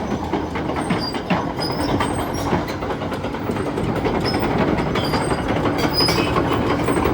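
Caterpillar 323E excavator working, its engine running steadily under a dense metallic clanking. Short high squeaks are scattered through it, typical of steel track links and pins.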